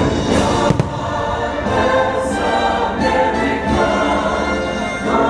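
Show soundtrack music: a choir singing over an orchestra, with a single sharp bang a little under a second in.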